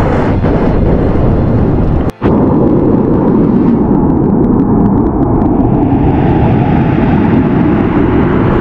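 Volcanic eruption: a loud, continuous low rumbling roar that breaks off briefly about two seconds in.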